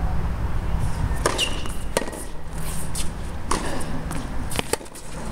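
Tennis rally on a hard court: sharp pops of the ball coming off the rackets and bouncing on the court, five or so about a second apart, over a steady low rumble.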